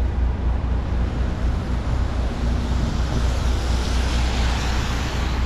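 Street traffic on a rain-wet road: passing vehicles and the hiss of tyres on wet pavement over a steady low rumble. The hiss swells about three to four seconds in as a vehicle goes by.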